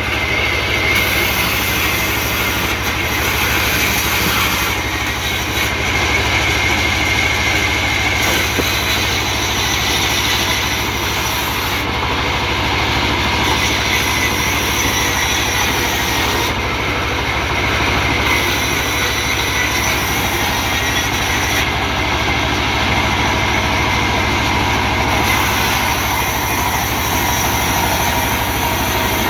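Band sawmill running, its blade cutting through timber with a loud, steady mechanical noise and a faint high squeal. The sound changes abruptly a few times.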